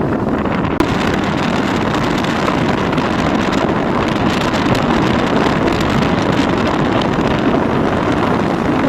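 Steady noise of a vehicle moving along a road, with wind rushing over the microphone.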